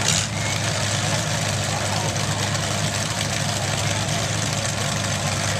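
Demolition derby cars' engines idling together with a steady low hum while the cars line up in the arena before the start. A brief burst of noise comes right at the start.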